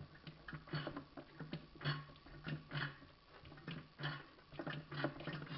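Hand pump on a bottle of automatic transmission oil being worked to squirt oil into the gearbox fill hole: a quick, irregular run of clicks and knocks.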